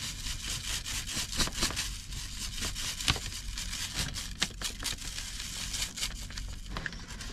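Paper fast-food bag shaken hard close to the microphone: a steady run of irregular paper crinkling and crackling, with a few loose fries and a lot of loose salt rattling inside.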